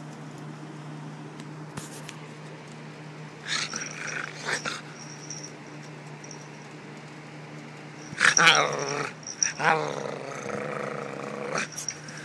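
Dog growling and snarling in short bouts, once a few seconds in and again more loudly from about eight seconds in, over a steady low hum.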